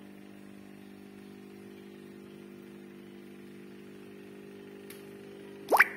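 Aquarium air pump humming steadily. Near the end there is a faint click, then a brief, loud squeak that sweeps quickly up in pitch.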